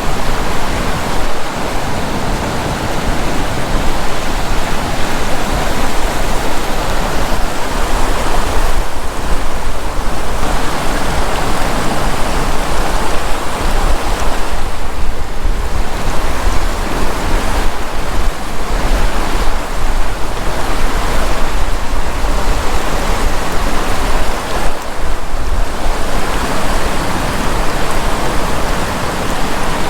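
Fast-flowing river water rushing steadily, a dense loud rush with a deep rumble underneath, thinning briefly about halfway through and again near the end.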